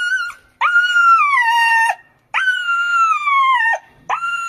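A puppy crying out in long, high-pitched yelps while being held down and given an injection, the cries of a dog in pain and distress. There are about three drawn-out cries, each a second or more and falling in pitch at its end, and another starts near the end.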